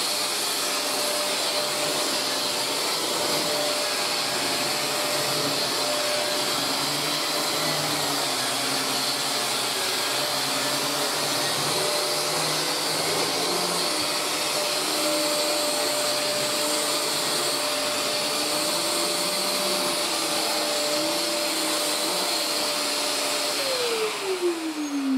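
Maytag Satellite hover canister vacuum cleaner with a 2000-watt motor, running steadily with a high whine over rushing air while it vacuums carpet. Near the end it is switched off, and the whine falls in pitch as the motor winds down.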